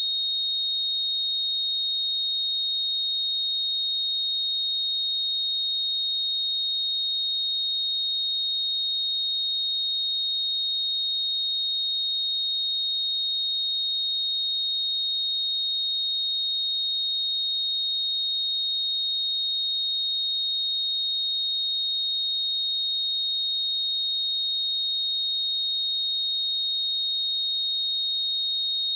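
A pure electronic sine-wave test tone at 3725 Hz, one steady high-pitched note held at constant loudness without change.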